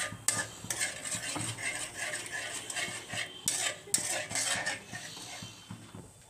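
A flat metal spatula stirring and scraping whisked yogurt around a metal kadai, making irregular scrapes and taps against the pan. The scraping thins out and gets quieter about five seconds in.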